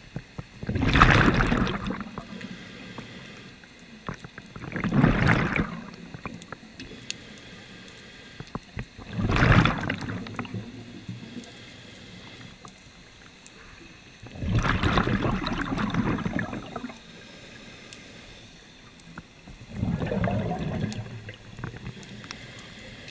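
Scuba diver breathing through a regulator underwater: five bursts of bubbles and breath about every four to five seconds, each lasting a second or two.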